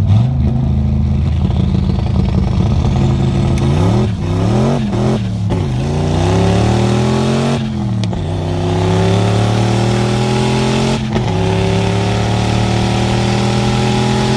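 Turbocharged 5.0 V8 of a 1992 Fox-body Mustang revved up against an MSD 6AL-2 two-step rev limiter. The revs jump up at once and hang at one steady pitch, waver up and down with a few short cut-outs midway, then hold again, creeping slowly higher, before dropping away near the end.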